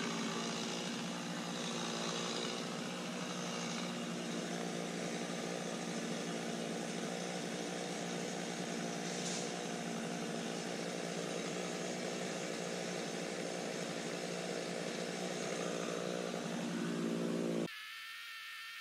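Kubota KX057-5 compact excavator's diesel engine running steadily. Near the end it cuts off suddenly, and a quieter high-pitched whine follows.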